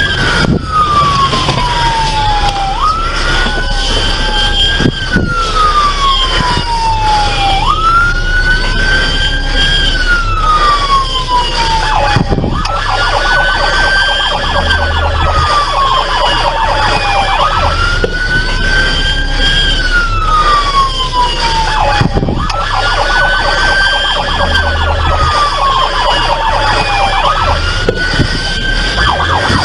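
Police car siren on a slow wail. Each cycle lasts about five seconds: a quick climb in pitch, a brief hold at the top, then a long slow fall before it sweeps up again.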